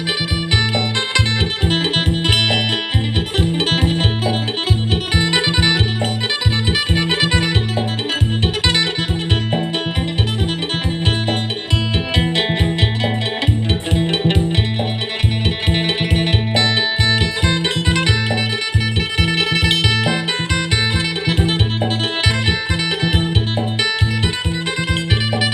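Acoustic phin, the Isan Thai plucked lute, playing a fast bright melody in phin sing style over a steady low drone and a regular beat.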